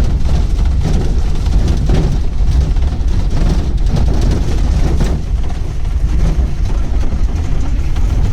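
Pickup jeep driving over a rough, unpaved road: a steady engine rumble with the body rattling and knocking over bumps.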